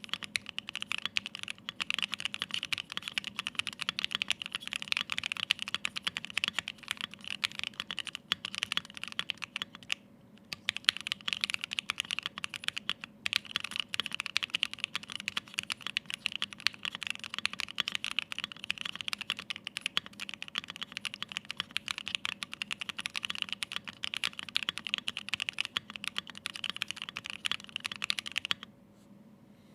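Fast, continuous typing on a Bakeneko 60 mechanical keyboard with Pinoko switches lubed with Krytox 205g0, an FR4 plate, ePBT keycaps and no foam. The typing pauses briefly about a third of the way in and stops just before the end.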